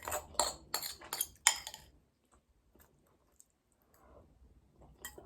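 A utensil clinking against a bowl while eating, about five quick clinks in the first two seconds, then almost nothing.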